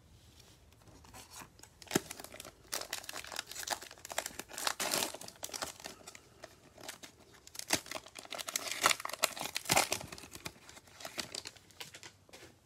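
Plastic wrapper of an Optic football card pack being torn open by gloved hands and crinkled as the stack of cards is pulled out: a run of crackling and rustling with several sharp crackles, starting about a second in and dying away near the end.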